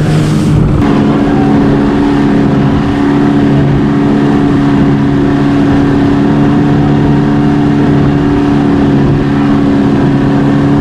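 Yamaha 115 hp outboard motor running hard at a steady pitch, driving the motorboat at speed across open water.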